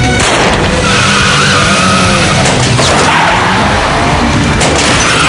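Car tyres squealing with the engine running hard, a wavering high squeal, over a tense dramatic score.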